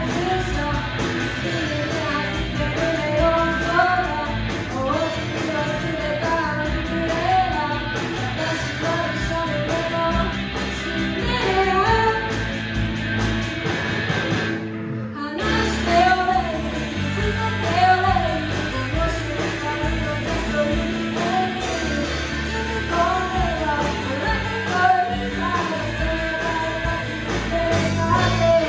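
A live rock band playing, a woman singing lead over electric guitars and drums, with a short break about halfway through before the band comes back in.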